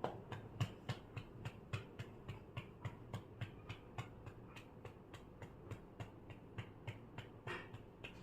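Hand patting a back to bring up a burp: soft, even pats, about three to four a second, with one longer sound about seven and a half seconds in.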